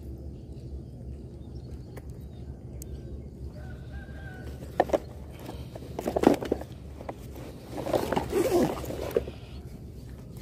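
A hooked snakehead fish thrashing as it is landed: short, irregular bursts of splashing and flapping, three times, loudest in the middle.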